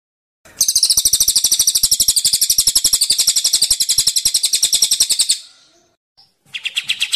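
Caged songbird giving a rapid, chattering trill of evenly repeated sharp, high notes, about ten a second, for about five seconds. After a short break a second, lower-pitched trill starts near the end.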